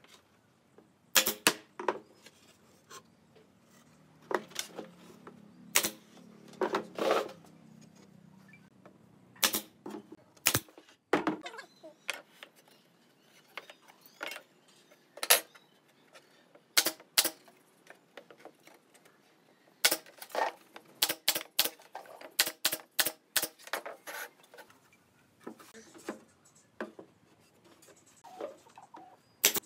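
A brad nailer firing sharp shots into pine boards, mixed with knocks of the boards being handled on a wooden workbench. The clicks come in irregular clusters, with a quick run of a dozen or so about two thirds of the way through.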